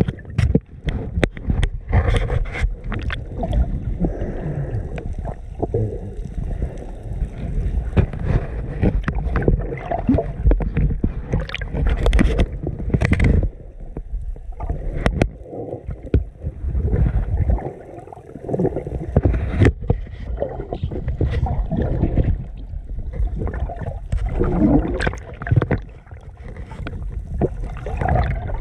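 Muffled underwater sound on a submerged GoPro Hero 7 Black: a low rumble of moving water with many sharp clicks and knocks, and some gurgling.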